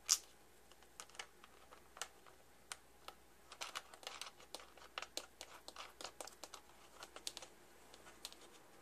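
Irregular small clicks and taps of hard plastic parts and a small metal fastener being handled as the red plastic housing of a vintage Christmas color wheel is fitted back together. One sharp click comes right at the start, and the clicks come thickest through the middle.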